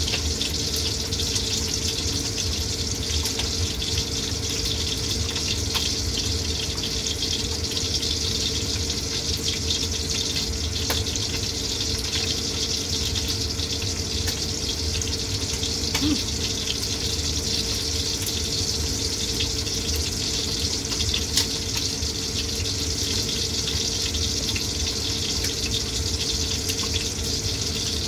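Steady hiss with a low hum underneath, unchanging throughout, with faint scattered clicks and smacks of someone eating rice and tofu by hand from a metal bowl.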